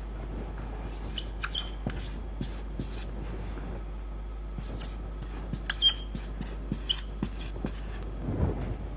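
Marker pen writing on a whiteboard: scattered short strokes and taps with a few brief squeaks, over a steady low hum.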